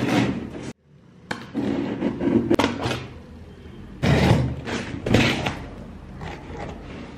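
Knocks, thumps and rustling from a delivery parcel of skincare products being handled and opened, in a string of separate bumps.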